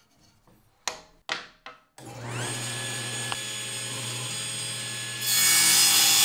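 A few sharp knocks in the first two seconds, then a table saw's motor switches on about two seconds in, its whine rising quickly to a steady run. A little past the middle the blade starts cutting a wooden test strip, and the sound gets much louder.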